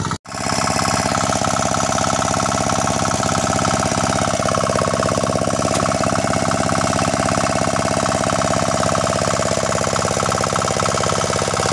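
Landmaster hand tractor's engine running steadily in a flooded, muddy rice paddy.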